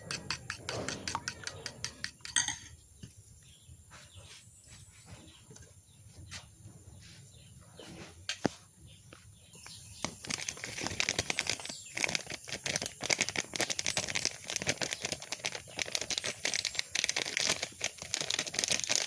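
Food frying in hot oil: a quick run of clicks at the start, sparse crackles, then dense sizzling and spattering from about ten seconds in.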